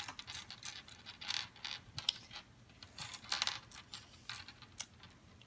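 A child chewing a jelly bean: soft, irregular wet clicks and smacks of the mouth, scattered through the few seconds.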